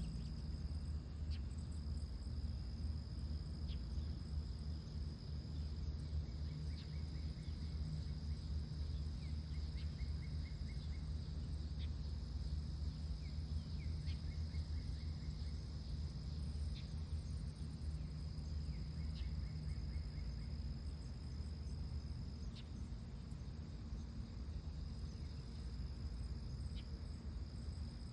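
Steady high-pitched insect trill over a constant low rumble, with a few faint, brief bursts of rapid chattering pulses scattered through.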